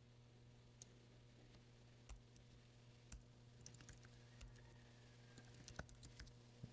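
Faint computer-keyboard typing: a few scattered keystrokes over a low, steady hum.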